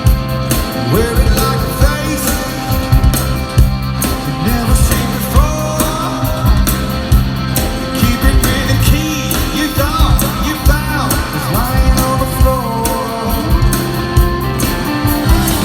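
Live rock band music: drums keeping a steady beat under guitars and bass, with a sung lead vocal.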